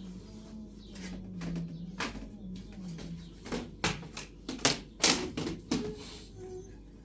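A run of sharp, irregular clicks and knocks, loudest and closest together about four to six seconds in, after a low wavering tone at the start.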